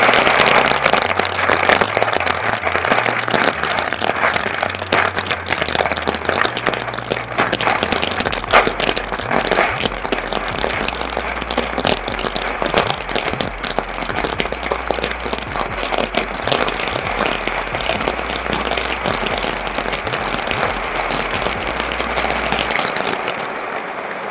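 Spinning Skull Flower ground fountain firework burning: a dense, continuous crackle of sparks over a rushing hiss. The crackling thins a little near the end.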